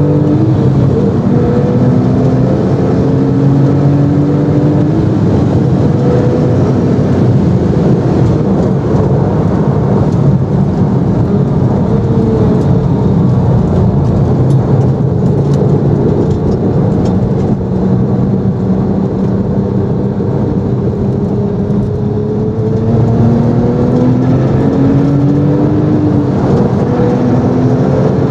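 Porsche GT2's twin-turbo flat-six with a QuickSilver exhaust, heard from inside the cabin, accelerating hard through the gears: the engine note climbs in pitch and drops back at each shift. Under it runs a heavy rush of wind and road noise at high speed.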